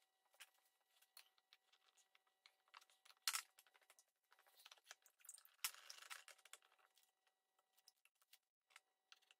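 Near silence with scattered faint clicks and two soft knocks, about three and five and a half seconds in, as metal bar clamps are handled and set across a glued-up wooden box.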